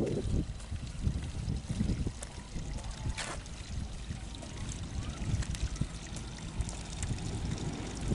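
Footsteps on a gravel dirt track, with irregular wind rumble on the microphone.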